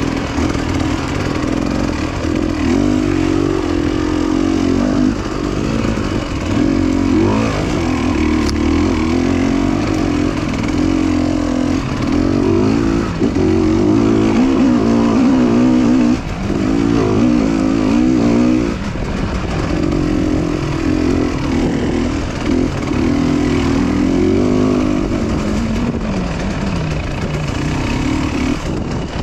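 Motorcycle engine running under way, its pitch repeatedly rising and falling with the throttle, over a steady rushing noise.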